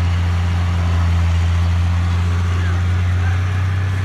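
Diesel engine of a tipper dump truck running steadily with a deep, even hum while its raised bed tips out a load of soil.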